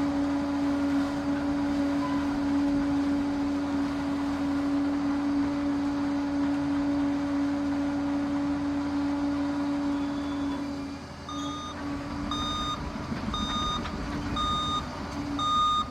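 Liebherr PR 746 crawler dozer running with a steady drone. About eleven seconds in, its reversing alarm starts, beeping about once a second as the machine backs up.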